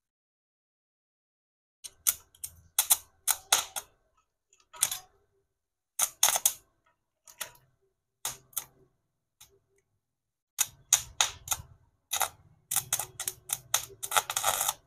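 Stick arc welder crackling in short, irregular bursts as tack welds are laid one spot at a time on the chipped teeth of a power-window regulator's steel sector gear. The crackle becomes nearly continuous in the last few seconds.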